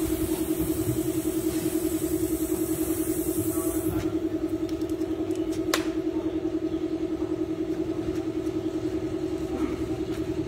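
Water spraying from a garden hose onto a carved wooden sculpture, a hiss that stops about four seconds in. Under it a steady motor hum with a fast, even pulse runs throughout, and there is one sharp click a little after the spray stops.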